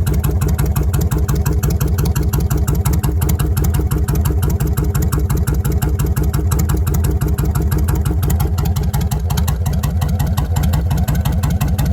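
Kawasaki Vulcan 1600 V-twin motorcycle idling steadily through 2.5-inch exhaust pipes with home-made baffles, a loud, even stream of rapid exhaust pulses.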